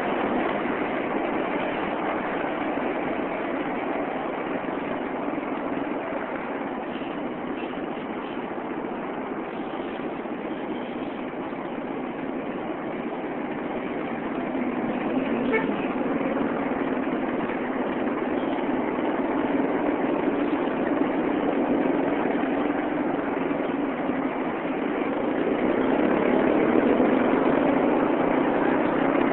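Steady street traffic heard from a moving vehicle: engine and road noise throughout, with a short horn toot about halfway through. The engine sound grows louder near the end.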